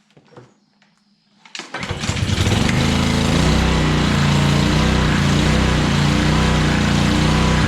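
Pressure washer's small gas engine pull-started about a second and a half in, catching at once and running steadily on choke. It runs again after its carburetor has been cleaned of ethanol-separated fuel and water.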